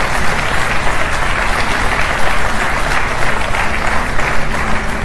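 Studio audience applauding: dense, steady clapping that dies away at the very end.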